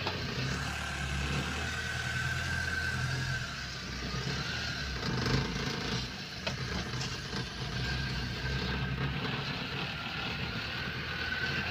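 Loaded truck's engine running steadily, heard from inside the cab as it drives along, with a faint whine that comes and goes above the engine hum.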